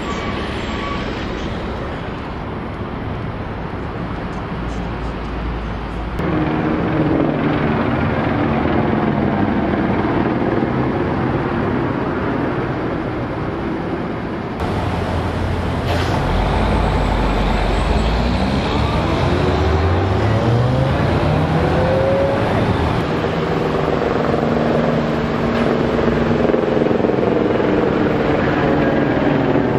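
Street traffic: a steady wash of passing cars and other vehicles, with one engine rising in pitch as a vehicle accelerates a little past halfway. The sound changes abruptly a few times where the recording is cut.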